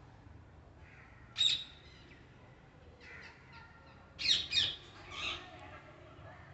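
Parrot calls: a single loud, harsh call about a second and a half in, then a quick run of shorter calls, two loud calls a little past four seconds and one more soon after.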